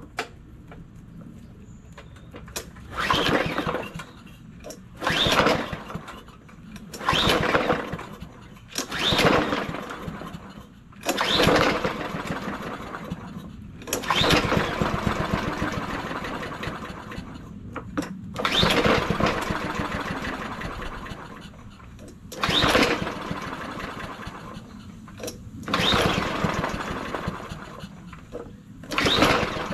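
Yard Machines push mower's small engine being pull-started with the recoil rope about ten times, a couple of seconds apart; on several pulls it sputters for a second or two on fuel dribbled into the spark plug hole, then dies. It is a no-start that the owner puts down to water getting into the intake through the missing air cleaner, leaving low compression.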